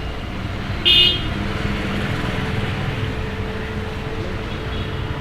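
Steady background road-traffic noise, with one brief, loud, high-pitched toot about a second in.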